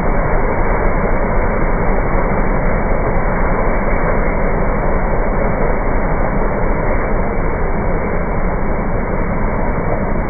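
Ride-on concrete power trowel (JWN24HTCSL) running steadily, its engine and twin rotor pans working fresh concrete, heard slowed down in slow-motion playback with no high end.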